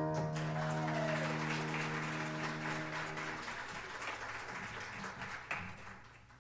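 Congregation applauding while the final piano chord rings out and dies away after about three seconds; the clapping thins out and fades near the end.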